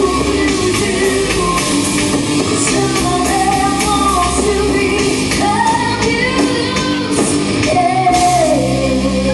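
Live rock band playing: a lead vocal sung over electric guitars and a drum kit.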